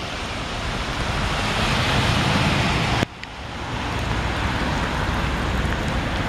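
Steady wind noise buffeting the microphone over a hiss of storm water and passing road traffic on wet pavement. The sound breaks off abruptly about three seconds in and builds back up.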